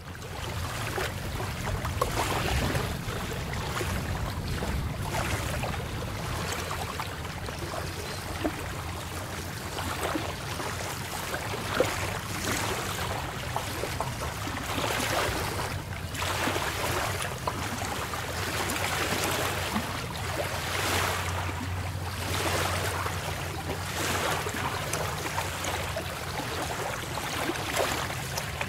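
Sea waves washing in and breaking on the shore, the surf swelling and easing every two to three seconds over a steady low rumble.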